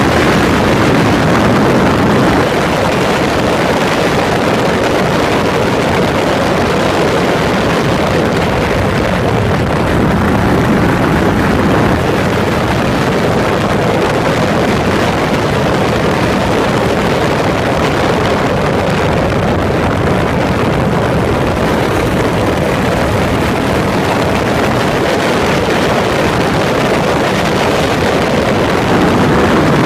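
A Yamaha SRX400's single-cylinder four-stroke engine running steadily while the motorcycle is ridden, heard from a phone mounted beside the fuel tank, mixed with wind rushing past.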